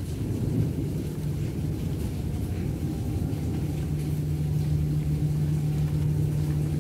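A low, steady rumble with a steady hum running through it, the hum getting stronger a few seconds in.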